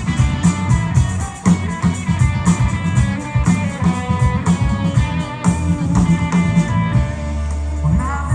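Live rock band playing with electric guitar over a drum kit, keeping a steady beat; no singing is heard.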